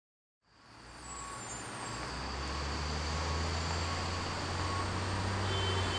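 Street traffic noise with a steady low engine hum, fading in from silence over the first second or two.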